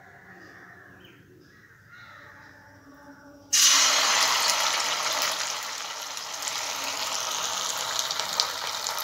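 Hot oil in a kadai bursting into a loud sizzle about three and a half seconds in, as a batter-dipped aval and potato cutlet goes in to deep-fry. The sizzle then eases a little into a steady frying hiss.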